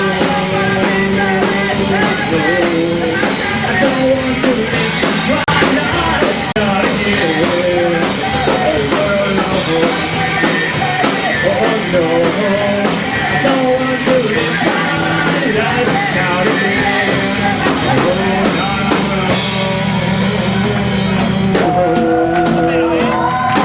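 Rock band playing live: drum kit and guitars in a loud, continuous instrumental passage.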